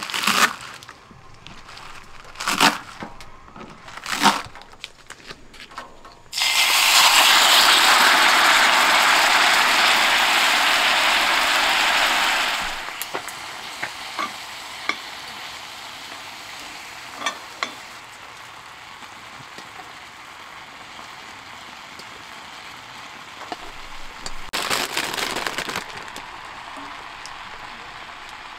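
A kitchen knife chops garlic chives on a wooden cutting board, a few sharp cuts. About six seconds in, chicken liver goes into hot oil in an iron skillet with a sudden loud sizzle, which eases after about six seconds into steady quieter frying. Near the end a second loud burst of sizzling comes as garlic chives and bean sprouts go into the pan.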